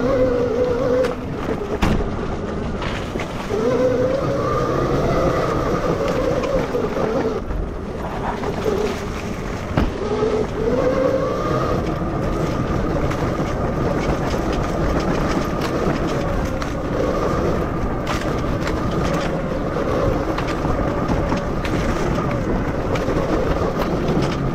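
Electric enduro motorcycle with an MG160A 12 kW motor on the move, ridden gently at part throttle: the motor's whine rises and falls with speed over a steady rush of noise. There are a few sharp knocks, about two seconds in, near ten seconds and near eighteen seconds.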